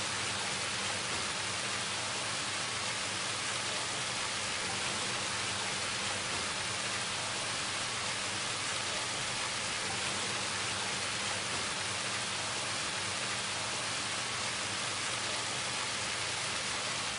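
Steady, even rushing noise with a faint low hum underneath, holding a constant level, then cutting off abruptly near the end.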